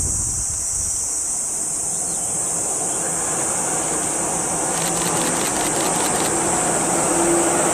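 Cicadas buzzing steadily in a high, even drone while a 185-series electric train approaches along the line. Its running noise swells from about three seconds in, with a rapid run of clicks about five seconds in.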